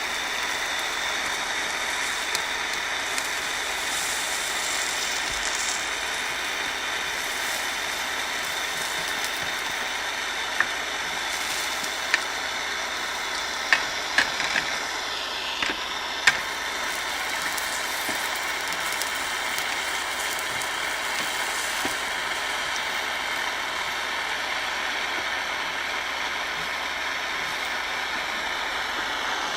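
Acetylene soldering torch burning with a steady hiss from its flame. A few sharp ticks come about a third of the way through and again near the middle.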